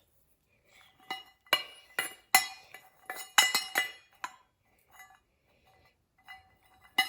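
Small hard objects clinking and knocking together as they are handled and set down in a lunch box: a quick series of sharp clicks, mostly in the first half, then a couple more near the end.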